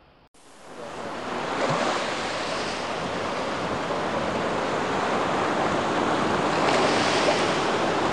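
Steady rushing noise, like breaking surf, fading in over the first second or two and swelling a little near the end.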